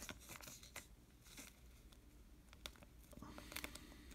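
Faint rustling and scattered light clicks of trading cards and a plastic card sleeve being handled.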